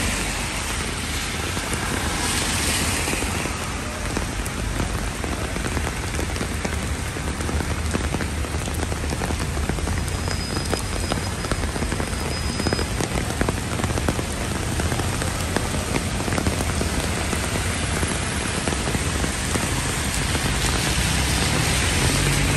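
Heavy rain falling steadily on wet pavement and road, a continuous hiss, with a low rumble of city traffic underneath. The hiss swells briefly about two seconds in.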